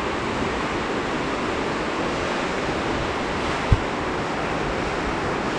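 Fast mountain river rushing over rocks and boulders, a steady, even rush of white water. A single brief low thump sounds a little past the middle.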